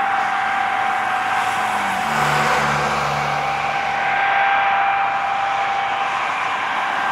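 Lockheed C-5A Galaxy's General Electric TF39 turbofan engines running with a steady high whine as the jet rolls along the runway. A lower hum joins in about two seconds in and fades out a couple of seconds later.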